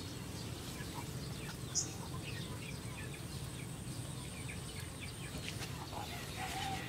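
Outdoor ambience by a pond: a steady low background rumble with faint, scattered bird chirps and small rustles and clicks, one sharper click about two seconds in.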